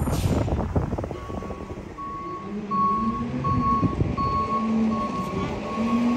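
Garbage truck's reversing alarm beeping at an even pace, about three beeps every two seconds, starting about a second in, over the truck's engine running.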